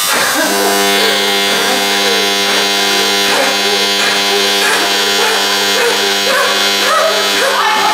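A man wailing in repeated rising-and-falling cries, like anguished sobbing howls, over a steady droning tone.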